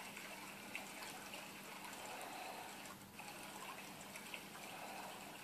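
Faint rustling of cotton yarn drawn through and around a metal crochet hook as double crochet stitches are worked, with a few soft ticks, over a steady low hiss.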